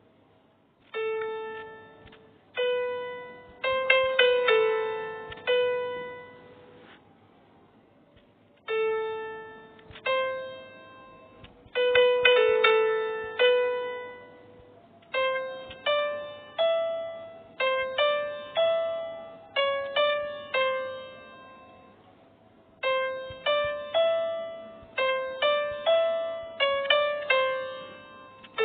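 Music: a slow melody of single piano-like notes, each struck and left to ring away, played in short phrases with pauses of a second or two between them.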